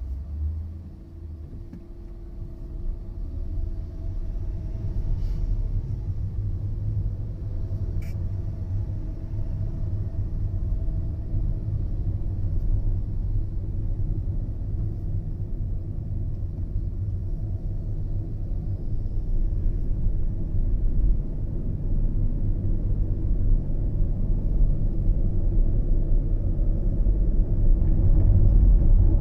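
Typhoon wind buffeting a smartphone microphone: a low, fluttering rumble that gets louder toward the end, with a faint steady hum underneath.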